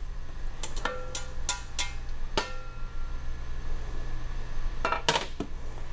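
Several sharp metallic clinks and taps of kitchenware, as a skillet and utensils are handled on the stove. A few of them ring briefly, and a low steady hum runs underneath.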